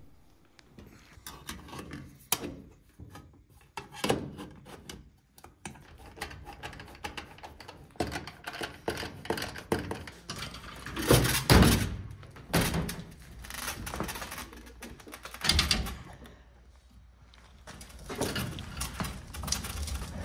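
Screwdriver work on the dryer's power-cord terminal block and its sheet-metal cover plate: scattered clicks, scrapes and knocks of metal, with the loudest thunks about 11 and 15 seconds in.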